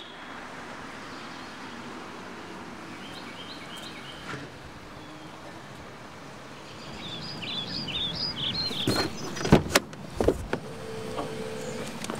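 A Toyota Prius pulls up to the curb, its sound swelling from about halfway, then a few sharp clicks and thumps as its door is unlatched and swung open near the end. Birds chirp in the background now and then.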